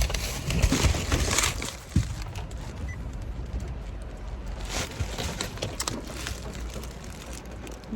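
Heavy rain pattering on a parked car, a steady hiss with scattered drops and a few knocks.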